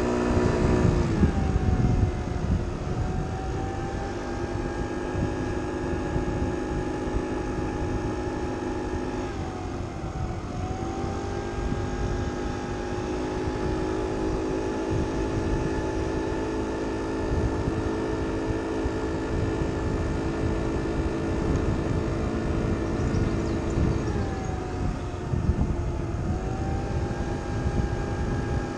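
Kymco Agility City 50cc four-stroke scooter engine running at riding speed, heard from the rider's seat over a low rumble. Its pitch drops soon after the start and settles lower, dips briefly about ten seconds in, and falls again at around twenty-four seconds before picking back up a couple of seconds later as the throttle is eased and reopened.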